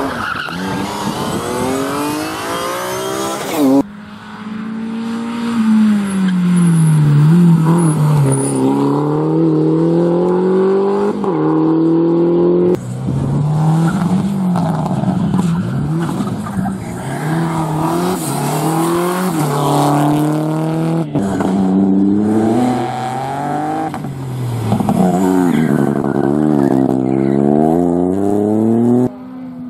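Rally car engines at full throttle, several cars in turn. The engine note climbs through each gear and drops sharply at every shift, and sinks as the cars slow for corners before pulling away again.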